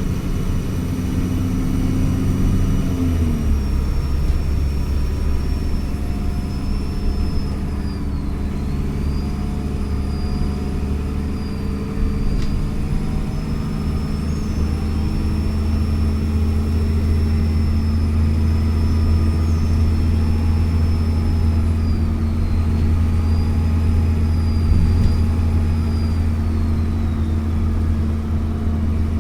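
Alexander Dennis Trident Enviro400 double-decker bus engine running under way, its note dropping about three seconds in and then holding steady. Over it a high turbo whistle holds, dips twice and falls away near the end.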